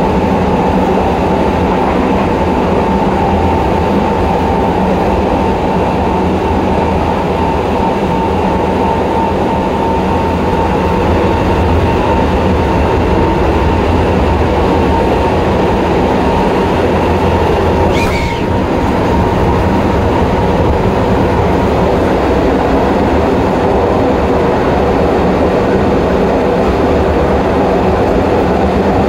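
Tokyo Metro 08 series subway car running at speed, heard at the gangway between cars: a loud, steady rolling rumble of wheels on rail. A steady high tone fades out about a third of the way through, and there is one brief sharp sound about eighteen seconds in.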